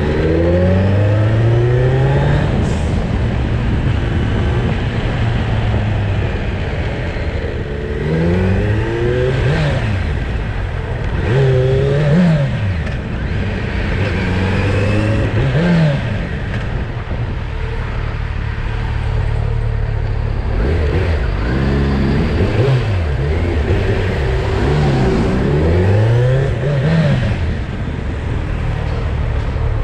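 Motorcycle engine pulling away and easing off again and again, its pitch climbing and falling back about six times as it revs up through the gears, over steady wind and road noise.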